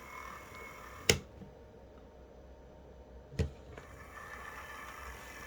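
Bachmann HO-scale EMD F7 model locomotive's motor and drivetrain running with a faint whine and grinding while it crawls, a sign of the drivetrain fault: the drive shaft has slipped out of the front truck. Two sharp clicks, about a second in and about three and a half seconds in, with the running sound dropping away after the first and coming back after the second.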